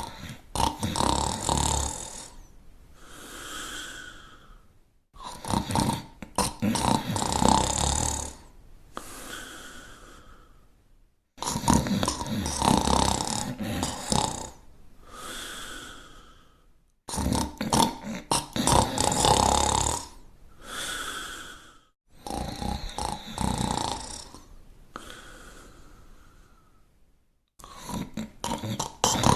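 Loud snoring: six snores about five and a half seconds apart, each a rattling snore of two to three seconds followed by a softer, whistly breath.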